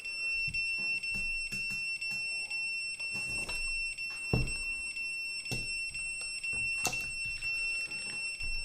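Continuity buzzer of a two-pole voltage tester sounding one steady high-pitched tone, its probes clipped across an immersion heater thermostat: the tone means the thermostat's contacts are closed. A few light knocks from handling tools on the table, the loudest about halfway through.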